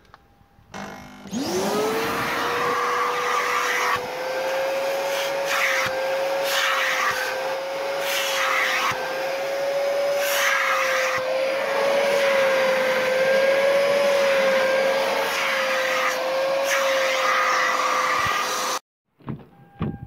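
A spray-extraction washing vacuum cleaner switches on about a second in, its motor whine rising quickly to a steady pitch over a loud suction hiss. It runs while the upholstery nozzle is drawn over a fabric car seat, with several brief hissing surges, and cuts off abruptly near the end.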